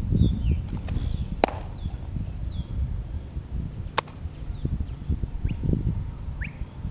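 Wind rumbling unevenly on the microphone, with small birds chirping in short falling notes. Sharp snaps cut through it, one about a second and a half in and the loudest about four seconds in.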